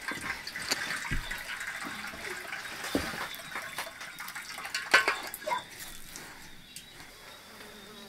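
Water splashing and sloshing, with scattered clicks and knocks of kitchen utensils; it grows quieter toward the end.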